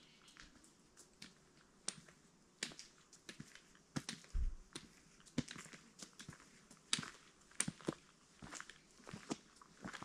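Footsteps crunching through dry fallen leaves on a dirt track: irregular crisp crackles, about one or two a second, with a single low thump about four and a half seconds in.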